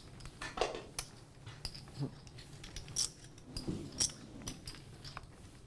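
Poker chips clicking together as a player handles his chip stacks: scattered sharp clicks, about two a second.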